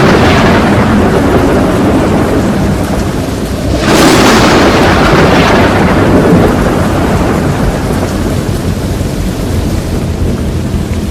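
Thunder over steady heavy rain: a clap dies away early on, then a second sharp crack about four seconds in rumbles away slowly over several seconds.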